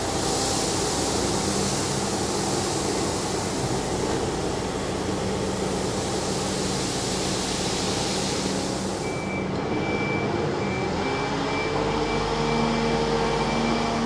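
Grain pouring in a steady hiss from a Manitou telehandler's tipped bucket onto a heap, over the telehandler's diesel engine running. The pour stops about two-thirds of the way through, leaving the engine, which rises in pitch near the end, and a thin high intermittent tone.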